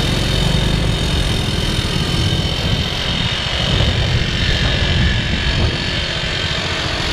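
A vehicle's engine running steadily, heard from on board, with a constant rushing noise over it.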